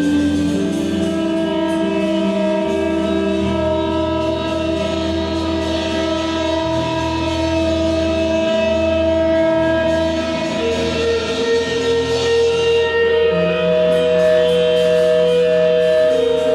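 Live amplified electric guitar and electric bass playing long held notes over a low drone, the pitches shifting every few seconds, with no steady drumbeat.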